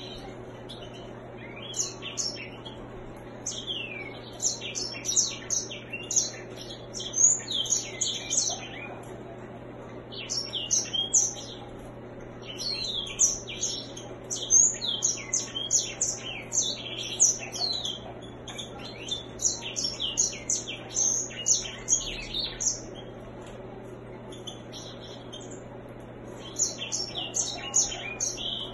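A grey singer (white-rumped seedeater, Serinus leucopygius) singing in long runs of rapid, high twittering notes, each run lasting several seconds, broken by short pauses. A steady low hum lies underneath.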